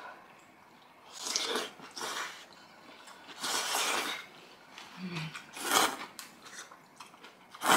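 Eating sounds from a person having hot kimchi rice porridge with noodles: about five short, noisy mouth sounds with chewing between them, and a brief low hum about five seconds in.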